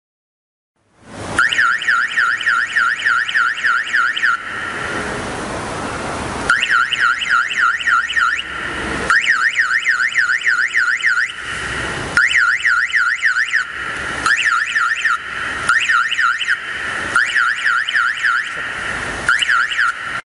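Electronic alarm siren of a motorcycle anti-theft lock system sounding loudly. It switches between a fast warble of about four up-and-down sweeps a second and stretches of a steady harsh tone, starting about a second in and cutting off suddenly at the end.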